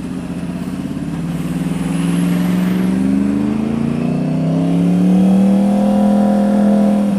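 Yamaha R1's inline-four engine through an aftermarket Toce exhaust, pulling away: its note rises in pitch over a few seconds, then holds steady and louder.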